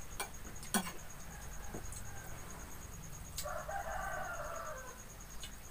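A rooster crowing once: a single call of about a second and a half, starting about three and a half seconds in. A couple of sharp clicks come near the start.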